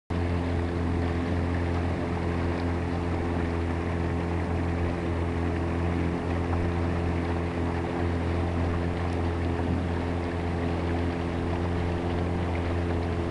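Outboard motor of a small boat running at a steady speed, a constant low hum with no change in pitch.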